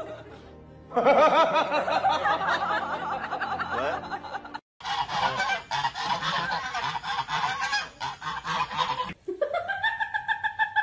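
Domestic geese honking and squawking for about four seconds in the middle, between other wavering animal-like cries; near the end a single long cry rises, holds its pitch and then falls.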